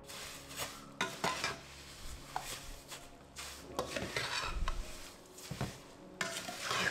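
A utensil scraping and clinking against a pot in a string of irregular strokes, as in stirring.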